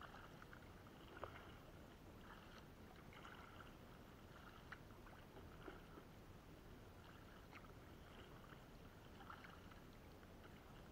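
Faint water sounds of a double-bladed paddle working a sit-on-top kayak through calm sea, soft dips and drips with a few small ticks.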